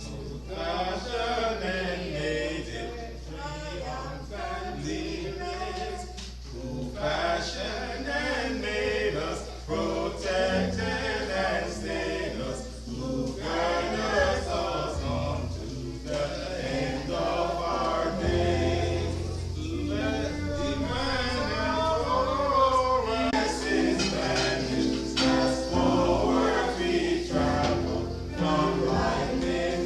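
Gospel choir singing a hymn with accompaniment; a deep, held bass note comes in about two-thirds of the way through.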